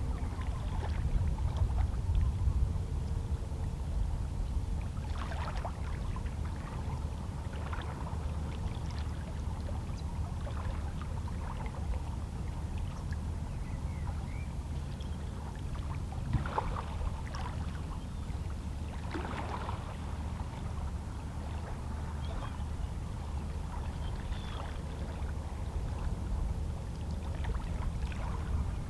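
Small waves of a calm sea lapping against shoreline rocks: irregular soft splashes and gurgles over a steady low rumble of water.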